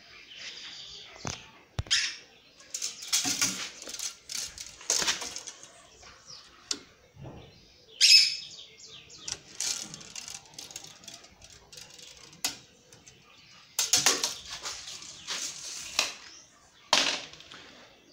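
Chickens in a coop flapping their wings: irregular short bursts of flapping and scuffling, the loudest about eight seconds in and again near fourteen and seventeen seconds, with bird chirps between them.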